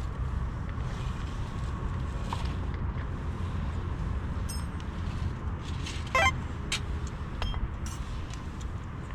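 A steady low rumble with a few scattered sharp clicks and crackles; the loudest comes about six seconds in, with a brief ringing tone.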